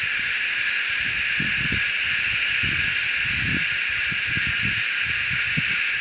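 A chorus of many cicadas calling at once: a loud, steady, unbroken buzzing hiss.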